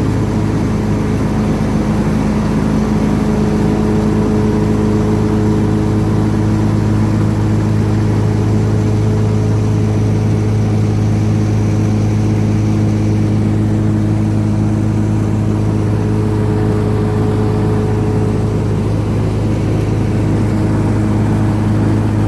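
Lawn mower engine running steadily, a constant unbroken drone while mowing.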